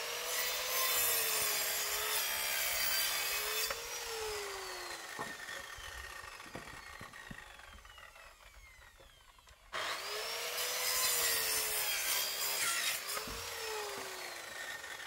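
Power saw making two cuts, one at the start and one about ten seconds in. Each time the motor runs with its pitch sagging and wavering under load for about four seconds, then it is released and winds down with a long falling whine.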